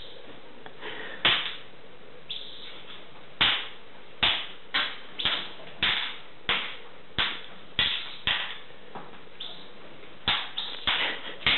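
A run of short, sharp, loud clacks from a caged jackdaw and magpie, about two a second, with a break shortly before the end.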